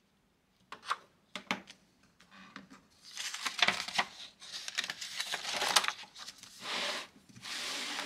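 Spiral-bound sketchbook being handled: a few light clicks and taps, then several seconds of paper rustling and rubbing as the pages are turned and the book is shifted across the table.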